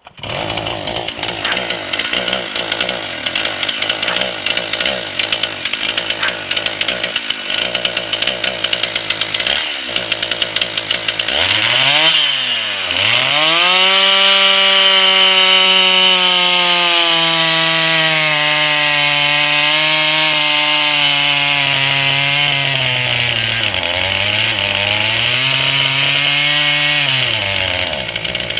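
Two-stroke chainsaw engine restarting and idling roughly and unevenly, then revved up about 11 s in and held at high speed with the pitch sagging and dipping a couple of times before it drops back to a ragged idle near the end. The saw doesn't want to run right.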